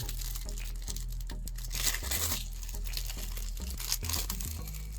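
Crinkly plastic packaging being torn open and crumpled by hand, in irregular rustling bursts, loudest about two seconds in.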